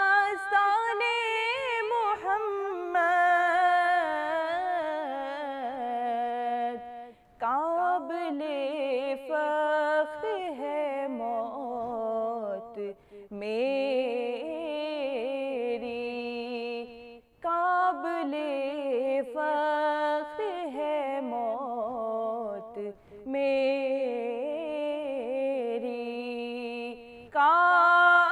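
A woman singing an Urdu naat in long, ornamented phrases, holding and bending notes, with short breaths between phrases every few seconds.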